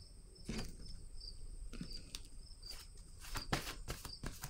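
Scattered soft clicks and rustles from tarot cards being handled, over a faint high chirp that repeats about twice a second and a steady high whine.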